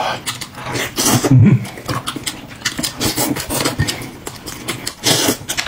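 Close-up eating sounds: wet chewing and smacking of food, with irregular clicks and a few heavier mouthfuls.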